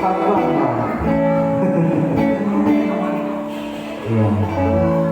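Band music: an instrumental passage led by strummed guitar, with held chords and no singing.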